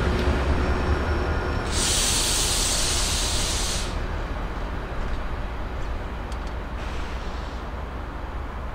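Pair of Class 68 diesel locomotives running away after passing, their low engine drone slowly fading. A loud burst of hiss comes about two seconds in and lasts about two seconds, with a fainter one near the end.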